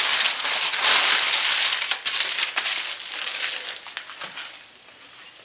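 Aluminium foil being crumpled and crinkled by hand, a dense crackling rustle that dies away about four and a half seconds in.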